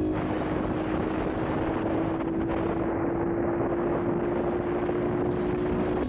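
Honda Monkey's single-cylinder engine running under way, its pitch rising slowly as it pulls in one gear, with wind noise over it. The pitch drops suddenly at the very end.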